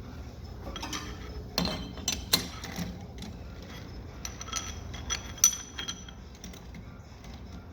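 Lathe compound rest being worked by hand: scattered metallic clicks and knocks, the sharpest about two and a half seconds in and a ringing clink about five and a half seconds in.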